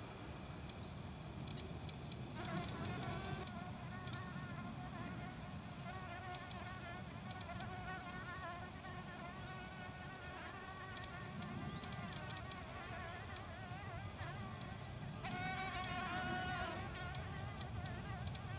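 Green-eyed flower bees buzzing in flight: a high, wavering hum that begins a couple of seconds in, comes and goes, and is loudest near the end.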